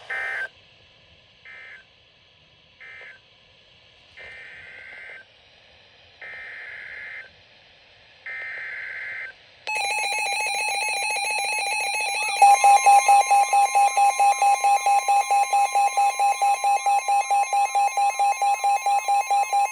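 Emergency Alert System data tones: three short warbling data bursts ending one alert, then three longer one-second bursts of the next alert's header. These are followed from about ten seconds in by a loud buzzy electronic attention tone, which about two and a half seconds later turns into a rapidly pulsing two-tone alarm.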